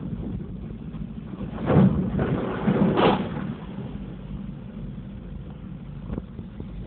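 A car passing along a flooded road, its tyres splashing through the floodwater, swelling up loudest for a couple of seconds about two seconds in over a steady low rush.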